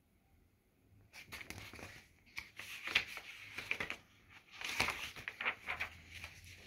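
Paper pages of a picture book rustling as they are turned and handled, in several bunches starting about a second in.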